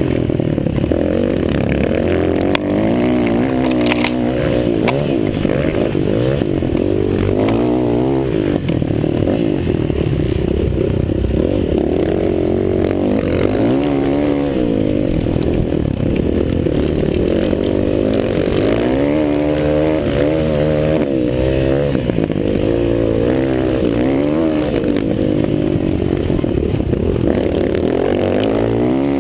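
Several motocross bikes racing, their engines revving up and down over and over as they accelerate, shift and ease off, with pitches overlapping one another.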